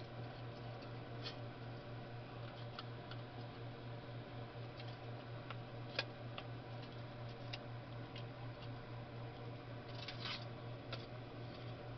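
Faint steady low hum with scattered light clicks and ticks. About ten seconds in there is a short rustling scrape as a hand handles the vulcanizing clamp.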